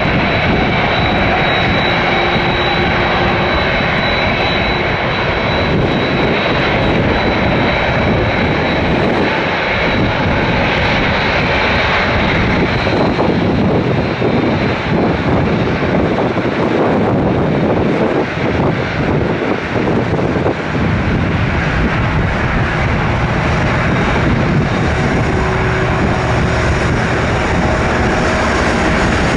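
Jet engines of a Boeing 787-8 airliner running loud and steady at close range, with a high whine that fades out about twelve seconds in.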